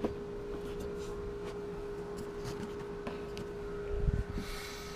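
A steady humming tone with a few faint clicks and a soft thump about four seconds in.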